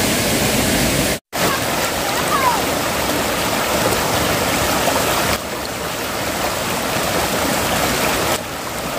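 Flowing stream water: a steady, loud rush. It cuts out completely for a moment about a second in and drops slightly in level twice later on.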